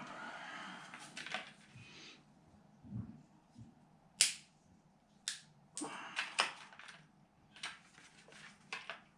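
Small hard objects handled on a workbench: a rustle, then a series of sharp clicks and light knocks, the loudest about four seconds in.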